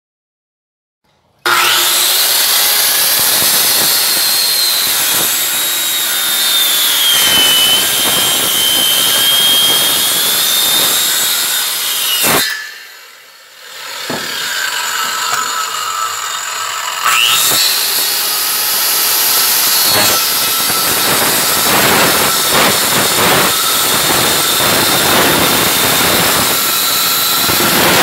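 Handheld electric circular saw cutting through a thick square wooden post, its whine sagging in pitch as the blade bogs down in the wood. About halfway through the sound drops away briefly, then the saw spins up again with a rising whine and cuts once more.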